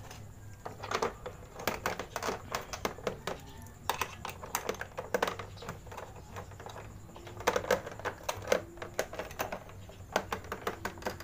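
Plastic fairing panels of a Suzuki Smash 115 scooter being pressed back into their clips and screwed down by hand with a screwdriver: a run of irregular light clicks and taps.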